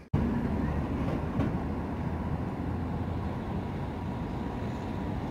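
Steady low rumble of street traffic, with a tram rolling slowly along the tracks at a distance.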